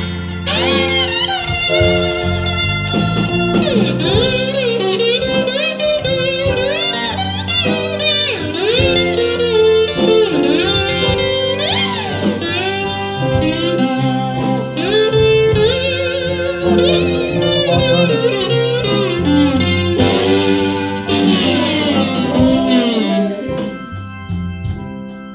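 Electric slide guitar solo: sustained notes gliding up and down in pitch, over a drum kit keeping time and a low bass line. It eases off near the end.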